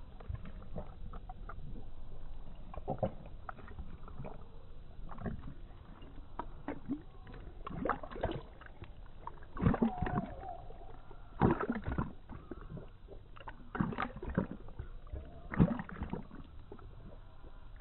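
A dog lapping water from the upward jet of a garden hose: irregular wet slurps and splashes, sparse at first and coming more often and louder in the second half.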